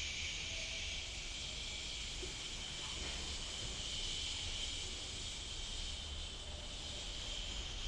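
A steady, high hiss with no clear rhythm.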